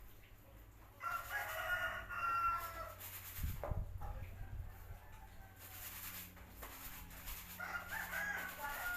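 A rooster crowing twice: one long crow about a second in and another near the end, with a short low thump in between.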